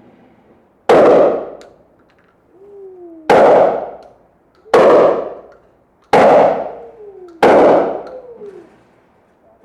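Five gunshots fired from a firearm at a range, spaced unevenly about one and a half to two and a half seconds apart. Each shot trails off in echo.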